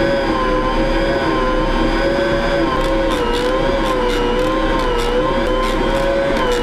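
Electric food processor motor running steadily under load as it kneads a stiff bread dough, its whine wavering slightly in pitch. From about three seconds in come repeated knocks as the dough, now gathering into a mass, strikes the bowl.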